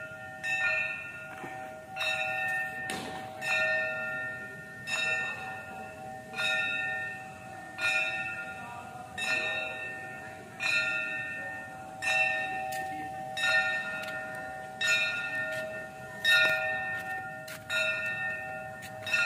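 A metal bell struck over and over at an uneven pace, about once a second, each strike ringing on into the next.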